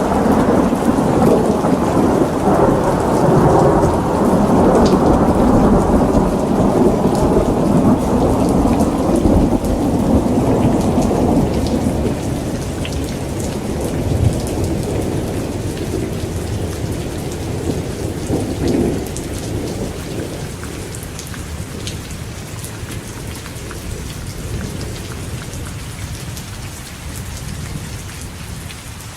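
Rain falling steadily, with a long roll of thunder that rumbles loudly at first and dies away over about twenty seconds.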